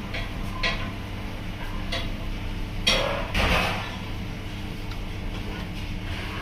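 Kitchen background with a steady low hum, a few light ticks, and one sharp clatter about three seconds in followed by a brief rushing noise.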